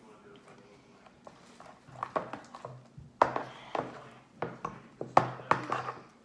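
Slime being stirred in a mixing bowl: irregular clicks, taps and sticky squelches, quiet at first and then more frequent and sharper from about two seconds in.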